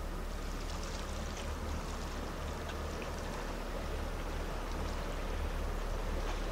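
Small waves lapping against the rocks of the shoreline, with scattered light splashy ticks, over a steady low rumble.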